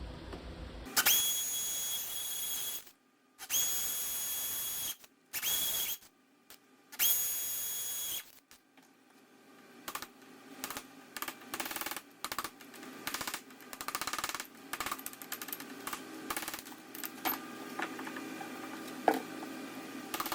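A power tool cutting into stone in four short bursts, each a steady high-pitched whine that stops abruptly. It is followed by a long run of quick, irregular taps and clicks as the stone is chipped away.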